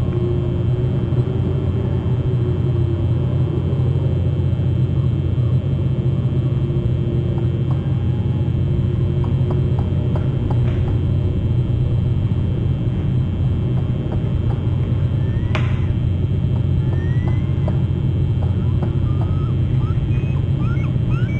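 Steady low rumble picked up by an outdoor webcam microphone, with a few faint, short, high chirps near the end.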